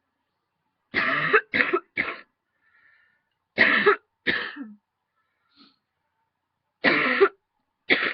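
A woman coughing in short fits from a tickle in her throat: three coughs about a second in, two more a couple of seconds later, and two near the end.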